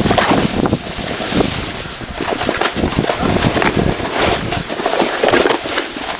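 Wind buffeting the microphone of a moving handheld camera, a loud rushing noise broken by irregular scuffs and crunches in snow.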